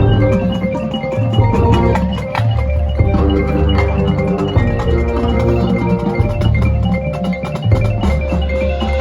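High school marching band playing. Mallet percussion plays fast repeating figures over low held bass notes, with drum hits.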